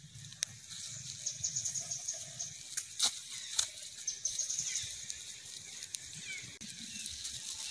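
Insects chirping in rapid high-pitched trains over a low outdoor rumble, with a few sharp clicks near the middle.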